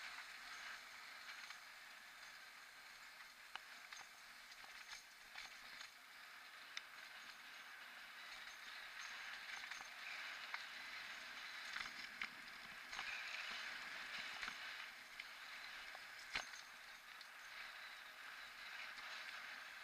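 Mountain bike rolling downhill on a rough paved road: a steady rush of tyres and wind, with scattered small clicks and rattles and one sharper knock about sixteen seconds in.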